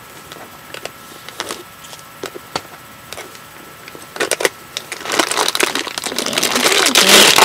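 Handling noise: scattered light clicks, then rustling and crinkling that builds and is loudest near the end.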